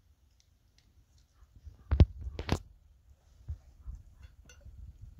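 Two sharp knocks about half a second apart, followed by a few faint scattered clicks.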